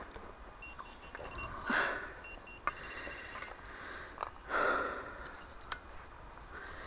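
A metal detector's speaker sounding short, repeated high beeps, broken by two rustling swells and a few sharp clicks.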